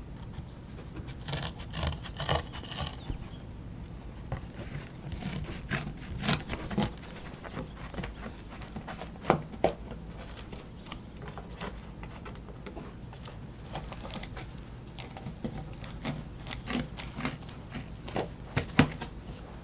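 Small spring-loaded multi-tool scissors cutting cardboard: repeated irregular snips and clicks with rubbing and scraping of the card between cuts.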